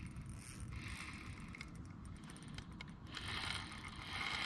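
Spinning reel under load from a large hooked fish: fine ratchet-like clicking in short spells, strongest about three seconds in and again near the end, over a steady low rumble.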